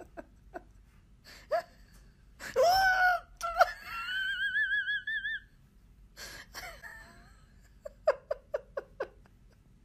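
A person laughing hysterically in high-pitched gasps and wails. A loud cry comes about two and a half seconds in, then a long warbling squeal, and a quick run of about six short laughs near the end.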